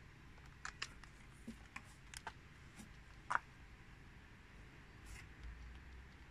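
Scattered light clicks and knocks of hard plastic as a yellow pocket calculator and its power cable are handled and fitted together, the loudest click about three and a half seconds in.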